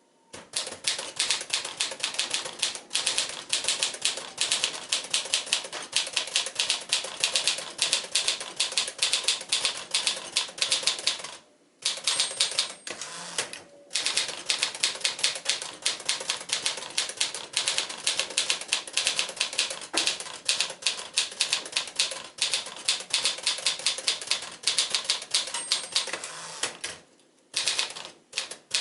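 1954 Smith-Corona Silent manual typewriter being typed on at a fast, steady pace, a rapid run of sharp keystroke clacks, broken by short pauses about twelve seconds in and again near the end.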